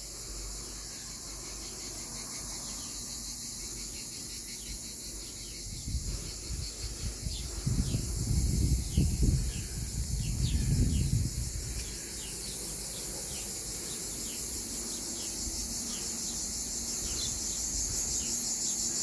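A steady, high-pitched chorus of insects chirring outdoors, with short bird chirps repeating over it. From about six seconds in, wind buffets the microphone in uneven gusts for several seconds, the loudest sound, then dies away.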